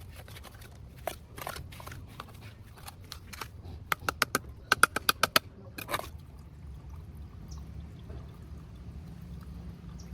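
Handwork on a water-meter pipe connection: fittings and tools knocking and clicking, with a quick run of sharp clicks about four to five and a half seconds in, then only faint low background noise.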